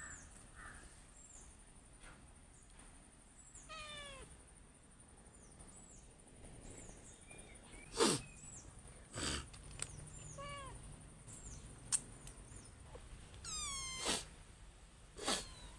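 Kittens mewing: three thin calls, each falling in pitch and spread through the clip, the last one the highest, with small high chirps between them. Several sharp knocks are the loudest sounds, over a steady high whine.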